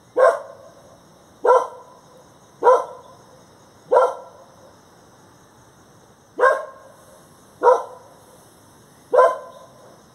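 A dog barking: seven single barks about a second and a quarter apart, with a pause of about two seconds midway. A faint steady high-pitched ringing runs underneath.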